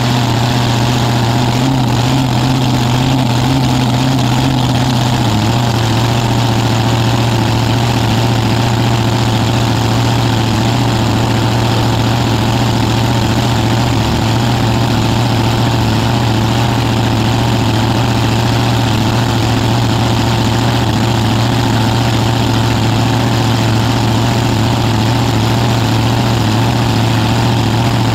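Nitro-burning V8 dragster engine idling loud and steady through open zoomie headers, heard from the cockpit. Its pitch drops slightly about five seconds in and then holds steady.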